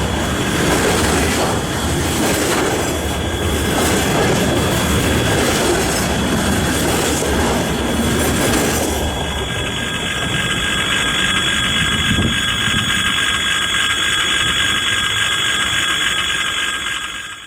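Container freight train rolling past, with a steady loud rumble of wheels on rail and a high, steady squeal of the wheels. About halfway through, the rumble thins and the squealing tones stand out more.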